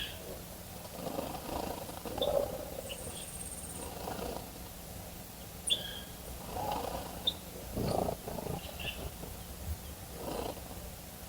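Scattered short bird chirps and peeps, with a brief high buzz about three seconds in, over an uneven low rumbling from an unidentified source.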